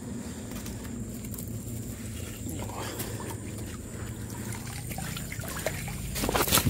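Small stream trickling and flowing over rocks, with a few sharp clicks near the end.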